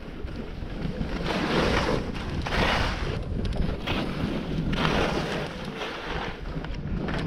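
Wind buffeting the microphone with a low rumble during a fast descent, under the hiss of ski or snowboard edges scraping packed groomed snow. The scrape swells with each turn, about every second or so.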